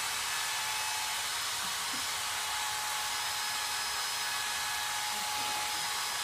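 Electric drill with a mixing paddle running steadily in a bucket of glaze, with a steady whine over the churning. It is stirring back up the minerals that have settled to the bottom of the glaze suspension.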